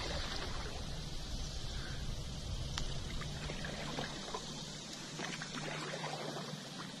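Water trickling and splashing around a kayak as it is paddled, over a low steady rumble.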